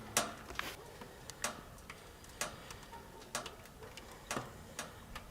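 Wood fire crackling inside a portable tent stove: sharp, irregular clicks and pops, roughly one a second.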